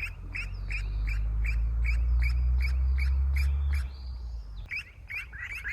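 A young bird peeping over and over, about three short chirps a second, crying out and calling for its parent. A low steady rumble lies under the first four seconds and then stops.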